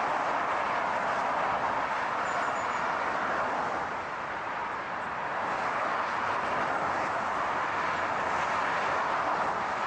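Car driving at a steady speed: an even rush of road and tyre noise, easing slightly about four seconds in.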